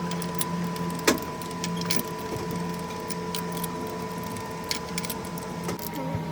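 Car engine running steadily, with scattered sharp clicks and taps, one louder click about a second in.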